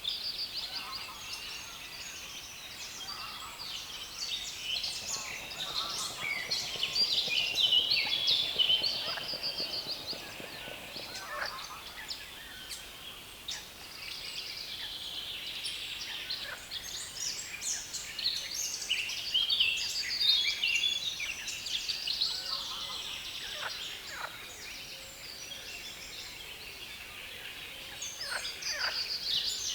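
Several birds singing over one another in the reeds, a dense stream of fast, chattering, repeated high phrases with a few lower calls mixed in. It swells louder twice, around a quarter of the way in and again just past the middle.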